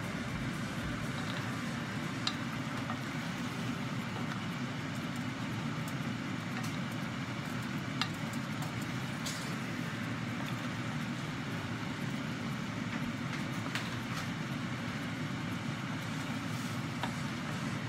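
Wooden spoon stirring chicken in a nonstick pot, knocking lightly against the pot a few times, over a steady rushing noise of the cooking.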